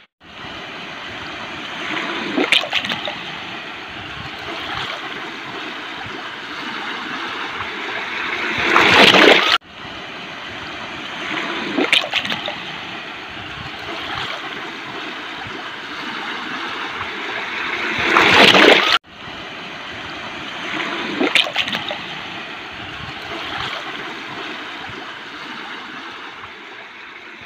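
Rushing water with a surge that swells to its loudest and then cuts off abruptly. The same stretch of about nine and a half seconds plays three times in a row, with a hard cut between repeats.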